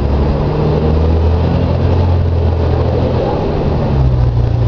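Volvo B58 bus's six-cylinder diesel engine running under way through its ZF Ecomat automatic gearbox, a steady low drone whose pitch changes about four seconds in.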